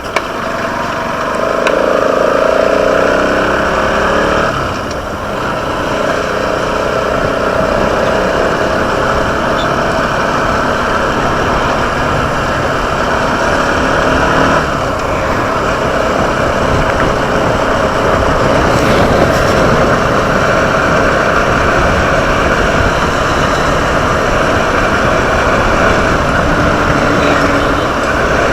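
Motorcycle engine running while being ridden on the road, with steady road noise throughout.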